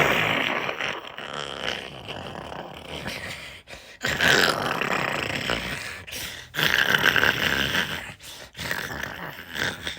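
A dog grumbling and growling in long, drawn-out vocal sounds, three in a row of a couple of seconds each, followed by a few shorter, quieter ones.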